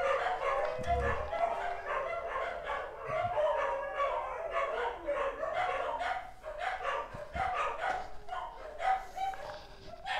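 Several dogs barking and howling together in a continuous, overlapping chorus.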